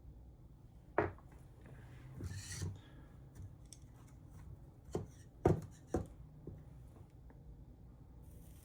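A few sharp clicks and knocks from small hand tools and parts being handled at a workbench, with a short scratchy rubbing sound about two seconds in and a quick cluster of three knocks around the middle.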